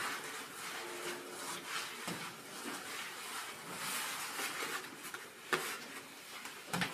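Soft rubbing and handling noise of hands rolling and twisting dough on a floured table and laying it on a sheet tray, with a few light knocks, one clearest about five and a half seconds in.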